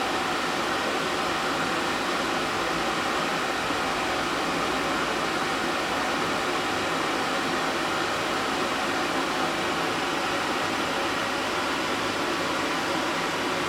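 A steady, even whooshing noise that does not change, like a running fan or air-conditioning unit.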